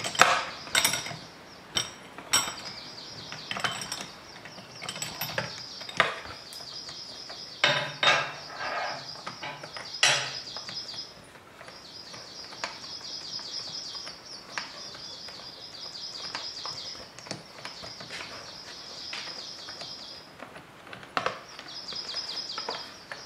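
Sharp metal clicks and knocks of a spanner and socket on an outboard's spark plug as it is loosened, the loudest near the start and around eight to ten seconds in. Behind them a small bird sings long, fast trills lasting several seconds each, with short breaks.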